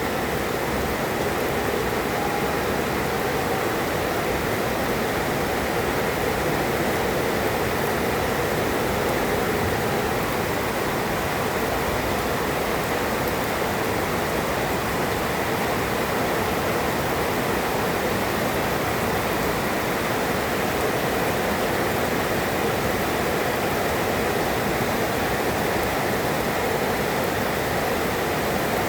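Heavy rain pouring down in a steady, even downpour, with no thunderclap in this stretch.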